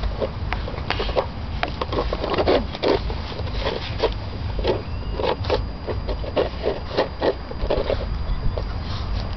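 Bernese mountain dog puppies, six weeks old, licking and eating from a plastic bowl and nosing it over paving stones: irregular short scrapes and clicks, a few a second.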